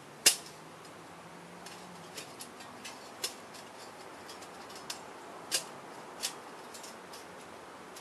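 A series of sharp, irregular clicks and snaps from small objects handled by hand while a camping stove is readied. The loudest comes right at the start, a few more follow every second or two, and fainter ticks fall between them.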